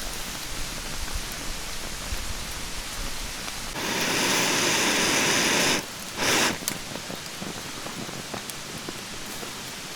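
Mountain stream rushing steadily. About four seconds in, a loud hiss starts and lasts about two seconds, followed by a shorter burst of the same hiss.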